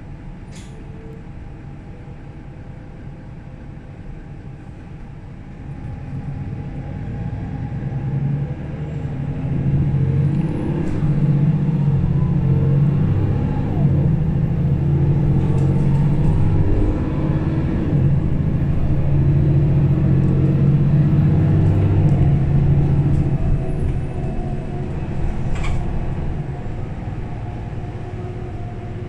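Mercedes-Benz O530 Citaro Facelift city bus heard from inside the passenger cabin. The diesel engine grows louder from about six seconds in as the bus pulls away and speeds up, runs loudest for about a quarter of a minute, then eases off near the end. There is a sharp click near the start and another near the end.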